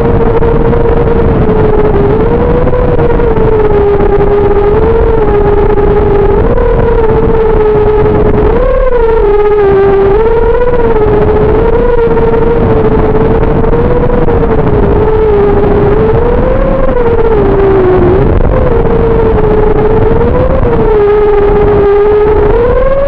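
FPV racing quadcopter on an XBEE-X v2 frame in flight: its brushless motors and propellers whine steadily, the pitch swelling up and dropping back every second or two as the throttle is worked, over a rough rushing noise.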